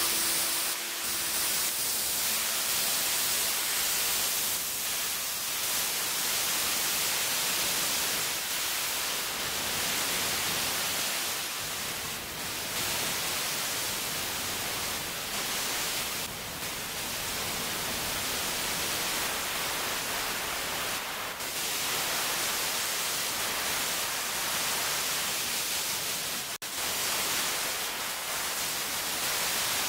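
A steady hiss of noise, strongest in the high range, swelling and easing a little in strength, with a brief dropout near the end.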